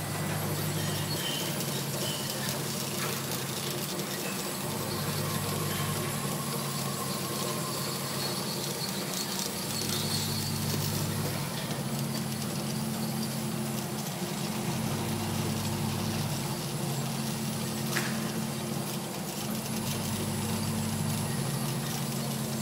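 Semi-automatic electric crepe-making machine running: a steady motor hum over a hiss, shifting between a lower and a higher pitch in a cycle that repeats about every five seconds, with one sharp click late on.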